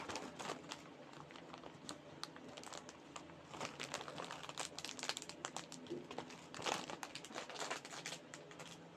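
Crinkling of a plastic Oishi Pillows snack wrapper as it is handled and pulled open, an irregular crackle that gets busier about three and a half seconds in.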